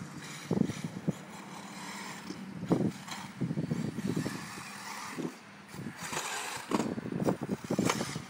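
1/8-scale electric RC buggy running around a dirt track: a motor hum under irregular louder bursts of noise.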